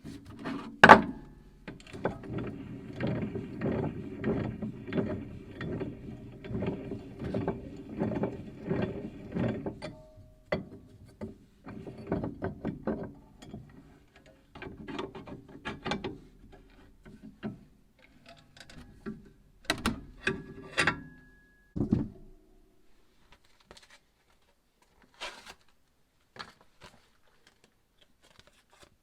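Hand-worked mechanism clicking rapidly for several seconds, then scattered clicks and taps.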